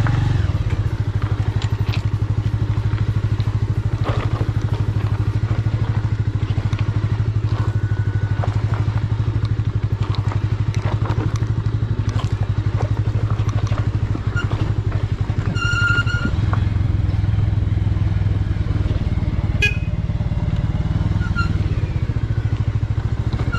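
Single-cylinder engine of a Bajaj Avenger 180 motorcycle running steadily under way, with even exhaust pulses, a little louder from about two-thirds of the way in.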